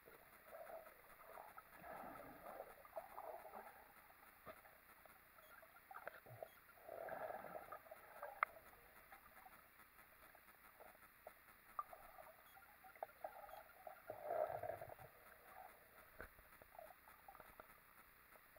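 Faint, muffled underwater sound of water moving, coming in irregular swells, with scattered small clicks and one sharper click about halfway through.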